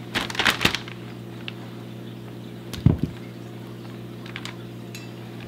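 Zip-top plastic bags crinkling as raw crappie fillets are put in with the breading, with a soft thud about three seconds in. A steady electrical hum runs underneath.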